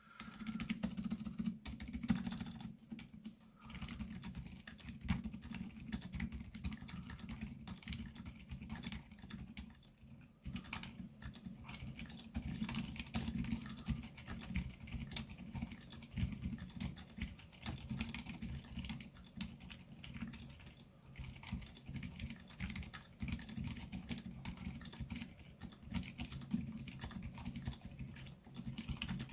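Continuous typing on a Royal Kludge RK68 mechanical keyboard fitted with Redragon Bullet QT tactile switches: a rapid run of keystroke clicks, with brief pauses about three and ten seconds in. The switches are tactile but fairly quiet.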